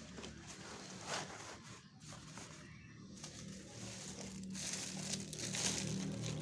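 Plastic packaging crinkling and rustling as it is handled during unboxing, on and off, getting busier over the last couple of seconds.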